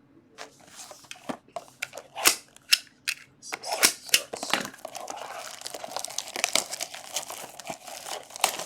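Trading card packaging being torn open by hand and crinkled: sharp crackles, then a denser run of continuous crinkling about halfway through.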